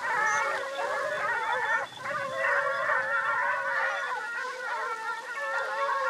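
A pack of Porcelaine hounds in full cry, many voices baying and howling at once in a continuous overlapping chorus: the hounds running on the scent of a wild boar.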